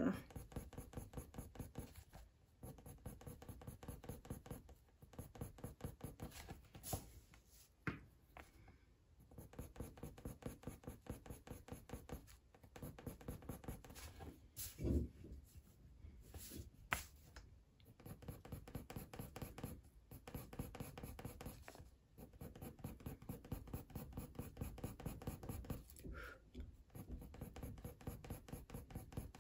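Coloured pencil scratching across hot-pressed watercolour paper in quick, short shading strokes, with brief pauses every few seconds. A soft knock about fifteen seconds in is the loudest moment.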